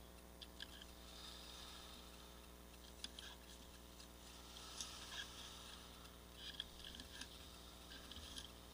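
Near silence: faint rustling and a few scattered clicks of handling noise over a small camera's steady electronic hum.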